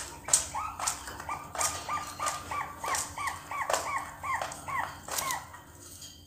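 Two-month-old Bangkok-strain zebra doves (perkutut) calling, still learning their song. A rapid run of short, hooked notes comes about three or four a second and stops about five and a half seconds in, with scattered sharp clicks.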